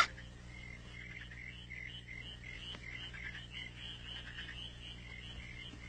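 Faint, rapid chirping calls of small animals, about three a second, over a low steady hum.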